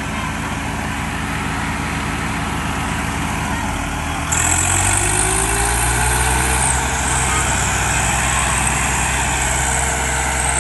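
Diesel tractor engines running hard under load as a Swaraj tractor and another tractor pull against each other in a tug-of-war. The sound gets suddenly louder about four seconds in, and the engine note then rises as they rev up.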